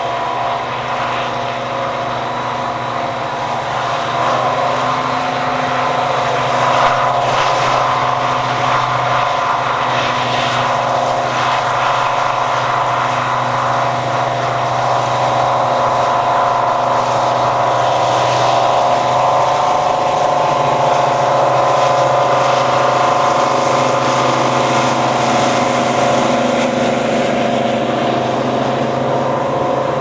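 Class 55 Deltic diesel locomotive running under power as it approaches and passes, its two Napier Deltic two-stroke engines giving a steady, many-toned drone. The drone grows louder over the first several seconds, stays loud as the locomotive goes by, and eases a little near the end as the coaches pass.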